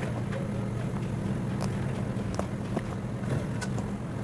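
Road traffic: a steady engine hum from passing vehicles, with scattered light clicks and taps over it.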